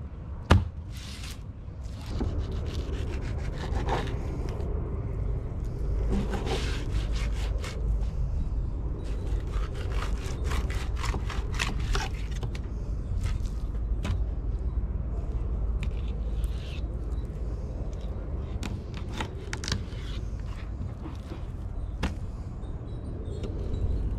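Fillet knife scraping and slicing through fish fillets on a plastic cleaning table, in a run of short strokes that come quickest in the middle, over a steady low rumble. A sharp knock sounds about half a second in.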